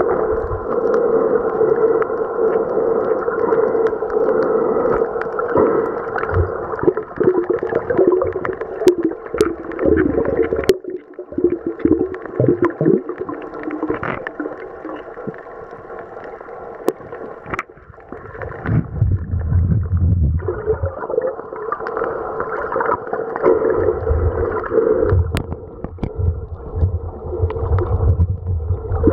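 Muffled underwater sound picked up by a camera submerged in the sea: a steady hum with gurgling water. A deeper rumble joins in for the last third.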